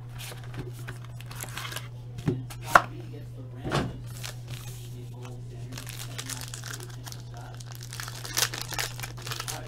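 Trading card packaging being opened and handled: crinkling and tearing of wrappers, with a sharp click and a couple of dull knocks early on and denser rustling near the end, over a steady low hum.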